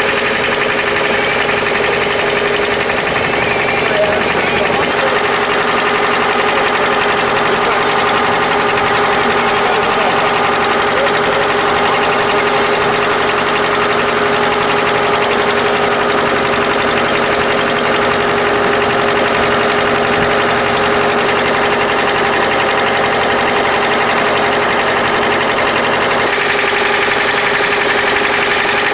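Boat engine running steadily with an even, unchanging drone, heard from on board.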